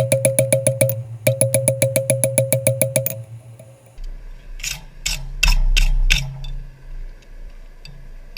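Rapid, evenly spaced ringing strikes of a hammer on steel, about eight a second, in two runs with a short break. Then come five duller, heavier blows over a low rumble.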